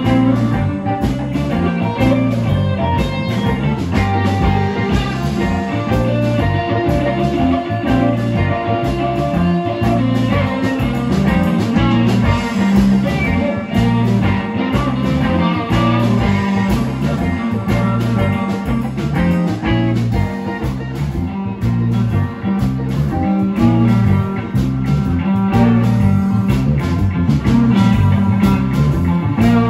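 Live electric blues band playing, an electric guitar to the fore over a steady rhythm from bass and drums.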